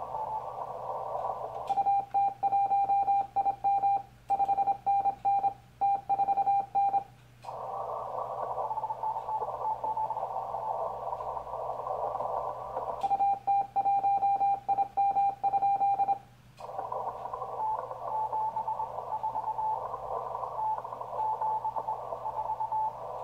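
Audio from a Yaesu FT-1000MP Mark-V Field transceiver on the 40 m band. The operator's own CQ call is sent twice in Morse code as a strong, steady sidetone about 2 and 13 seconds in. In between, the receiver plays band hiss through a narrow CW filter, with faint Morse signals from other stations.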